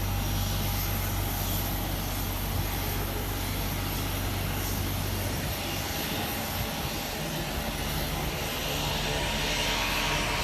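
Aircraft engine droning steadily at an airport. Near the end a set of evenly spaced engine tones comes up and grows louder as an aircraft draws nearer.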